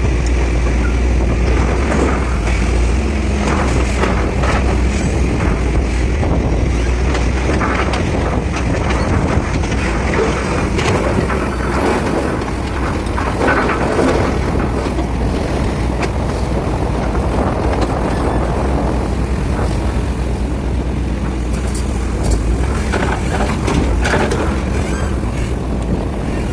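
Excavator's diesel engine running steadily under load while loading a dumper. Bursts of clattering and knocking come about halfway through and again near the end.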